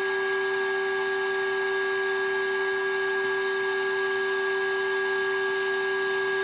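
Steady, unwavering audio test tone from a Roberts Rambler transistor radio's speaker: the signal generator's modulated 470 kHz IF signal, demodulated while the IF transformers are trimmed for peak output, and now close to peak.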